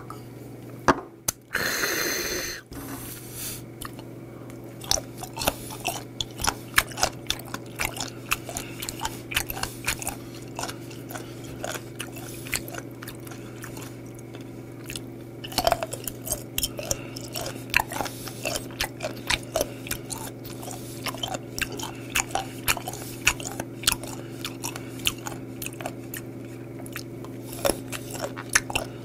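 Close-up crunchy chewing of raw sea cucumber: rapid, irregular crisp crunches and squelches from the firm, rubbery flesh. Near the start there is one loud breathy exhale just after a shot of soju.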